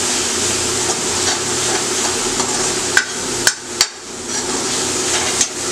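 Spiced chole masala paste sizzling in oil in a metal kadai while a metal spatula stirs it. The spatula strikes the pan sharply three times in quick succession about three seconds in, and once more near the end.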